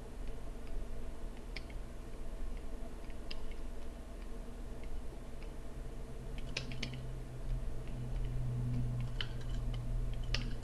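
Scattered clicks of a computer keyboard, single or in quick little clusters, over a low steady hum that grows a little louder past the middle.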